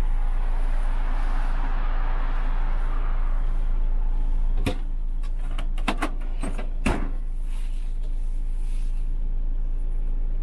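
Heavy truck's diesel engine idling steadily, heard inside the cab, with a hiss that fades over the first few seconds. Several sharp clicks and knocks come about halfway through.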